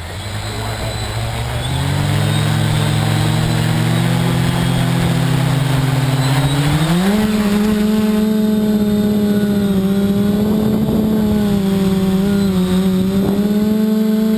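Hoverbot HB8 580 mm multirotor's electric motors and propellers humming as they spin up over the first two seconds. At about seven seconds the pitch rises and the separate motor tones merge into one steady drone, with small wobbles as the throttle is adjusted.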